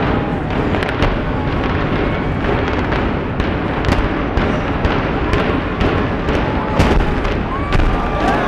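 Demolition charges firing through Texas Stadium in a rapid, irregular series of sharp cracks and bangs over a continuous low rumble, the charge sequence of the stadium's implosion.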